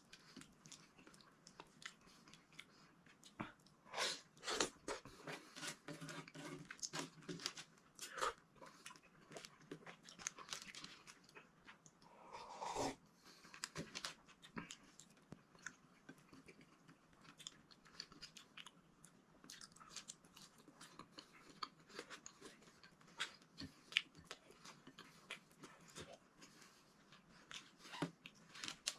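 A person chewing and biting food close to the microphone, with irregular mouth clicks and smacks, and one slightly longer, louder mouth sound about halfway through.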